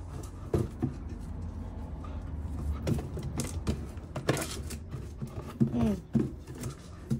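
Cardboard shipping box knocking and scraping on a concrete doorstep as a corgi drops it and picks it up again in its mouth: several short, sharp knocks spread through the stretch, over a low steady rumble.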